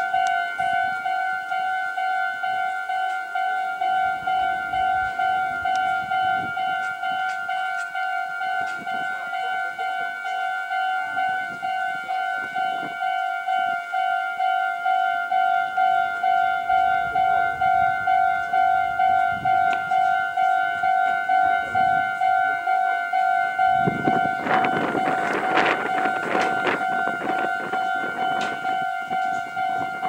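Japanese level-crossing warning bell ringing, an electronic two-tone 'kan-kan' that pulses evenly while the crossing's lamps flash. A louder rushing noise swells over it for a few seconds near the end.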